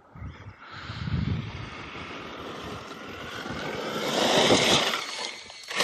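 Arrma Kraton EXB RC truck's brushless electric motor whining under throttle, its pitch rising and falling as it speeds up and slows, loudest about four seconds in.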